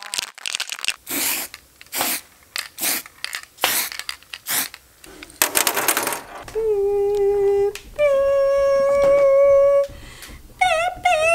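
Aerosol spray can being sprayed in a series of short hissing bursts over the bare metal edges of a cut latch opening, ending with one longer burst. From about two-thirds of the way in, held, slightly wavering musical notes step up in pitch.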